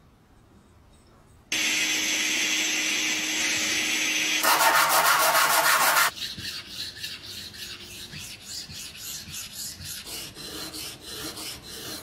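Steel meat-grinder cross blade being sharpened on abrasive paper. A loud steady abrasive hiss starts abruptly about a second and a half in, grows louder, and cuts off at about six seconds. Then come quick, even back-and-forth scraping strokes of the blade on the sandpaper.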